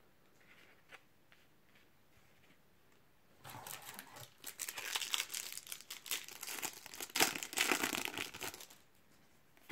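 Foil wrapper of a Topps Match Attax trading-card pack crinkling and tearing as it is ripped open, starting about three and a half seconds in and lasting some five seconds.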